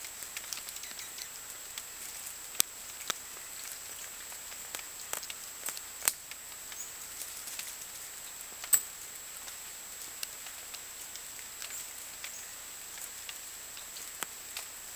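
Birds at a seed feeder: irregular sharp ticks and taps of pecking and shuffling, a few of them louder, over a steady hiss.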